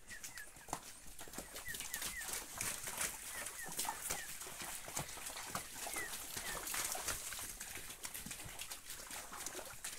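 Cattle hooves splashing and squelching through a shallow muddy stream as Gyrolando heifers walk through it one after another. A bird chirps several times in short falling notes, in twos and threes.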